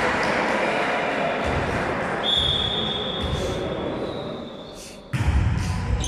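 Volleyball referee's whistle blown once in a long, fading note about two seconds in, signalling the serve, over the echoing chatter of a gym hall. About five seconds in comes a sudden hit as the ball is served.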